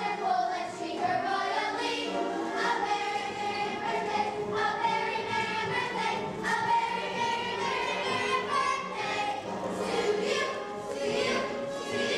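A group of children singing a song together in chorus.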